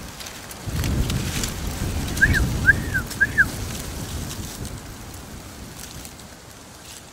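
Low rumble and crackle of grass and handling against the camera microphone as the camera is moved, loudest from about a second in and fading after about four seconds. Three short high chirps, each rising and falling, come quickly one after another about two seconds in.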